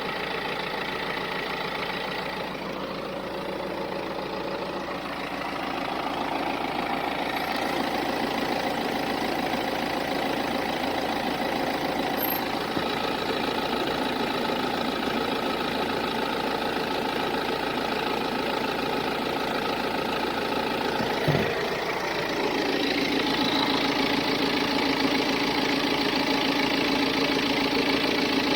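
BMW B47 four-cylinder turbodiesel engine idling steadily, carrying a noise the owner cannot identify. A single sharp knock comes about three quarters through, after which a steady lower hum grows stronger.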